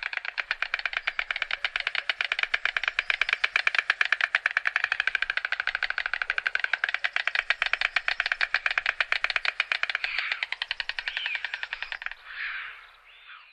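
White stork clattering its bill: a long, rapid run of hard wooden clacks that stops abruptly about twelve seconds in, followed by a few brief softer sounds.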